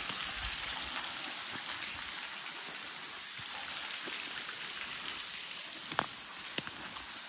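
Small woodland creek running over rocks: a steady rushing hiss of water, with a couple of faint clicks about six seconds in.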